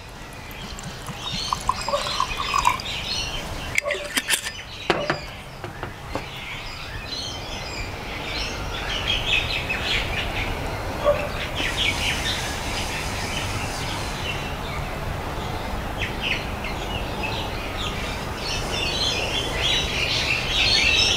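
Small birds chirping on and off. Whisky is poured from a bottle into a glass tumbler near the start, and there are two knocks about four and five seconds in.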